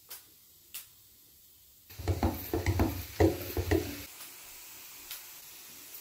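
Wet Indian ringneck parakeet flapping its wings and shaking water from its feathers in a rattling flurry of about two seconds, after two short clicks. A faint steady hiss follows.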